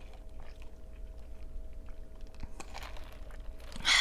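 A person drinking, with faint swallowing and mouth clicks, then a short loud breathy exhale near the end.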